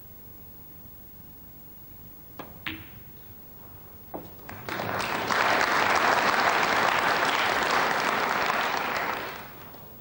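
A few sharp clicks of snooker balls, then the audience applauding loudly for about five seconds before it dies away.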